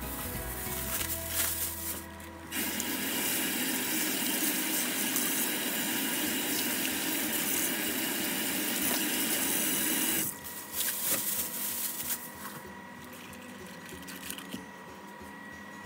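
Kitchen tap running into a stainless sink, with water splashing over cabbage being rinsed, then shut off suddenly about ten seconds in. After that, cabbage leaves rustle and crackle as they are pulled apart and handled.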